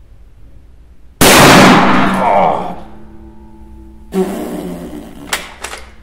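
A single very loud shot from a Parker-Hale Type 98K bolt-action rifle in .375 Holland & Holland Magnum, about a second in, with a ringing tail lasting over a second. A few seconds later comes the bolt being worked: a rattle and a couple of sharp metallic clicks.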